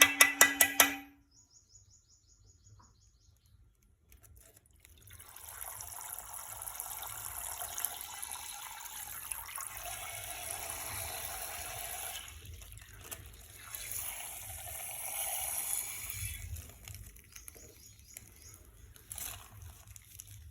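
Water pouring and trickling out of a punctured plastic ice-pack bag, a steady splashing run of about ten seconds that starts a few seconds in and tapers off. A quick rattle of clicks opens the stretch.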